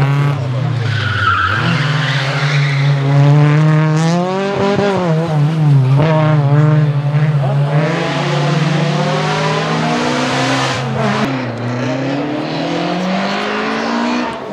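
1997 VW Golf 3 Kit Car rally car's naturally aspirated 2.0-litre straight-four engine revving hard, its pitch climbing and dropping over and over with gear changes and lifts, with a brief tyre squeal about a second in.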